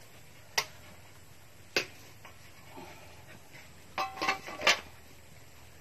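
Metal kitchenware clinking: two single sharp clinks, then a quick cluster of clatters about four seconds in, one ringing briefly, as the aluminium pot lid is set down.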